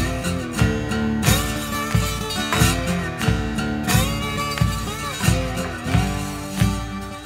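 Background music with a steady beat, about three beats every two seconds, and a melody over it.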